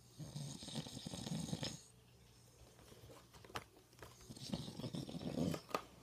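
A man snoring in his sleep: two long, rattling snores, the second starting about four seconds in, each lasting well over a second.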